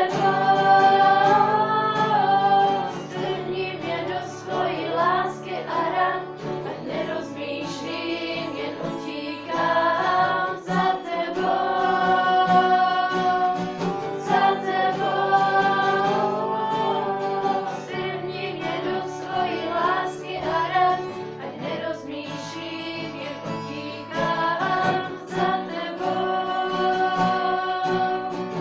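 A youth group singing a Czech Christian worship song together, in long held notes over a steady instrumental accompaniment.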